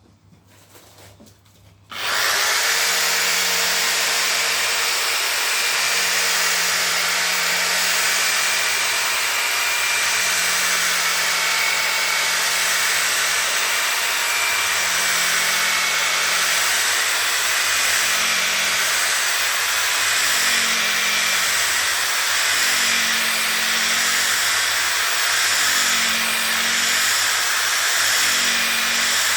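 Power drill fitted with a polishing disc switching on about two seconds in and running steadily against a headlight lens, with a low hum that comes and goes as it is worked.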